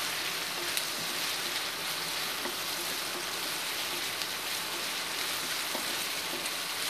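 Sliced onions sizzling in hot oil in a kadai, with a steady hiss. They are stirred with a wooden spatula that gives a few faint scrapes and clicks against the pan.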